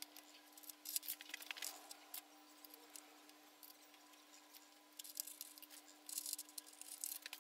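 Faint scattered metallic clicks and scrapes of a hex key being worked in the cap screws of a mini lathe's carriage, over a faint steady hum.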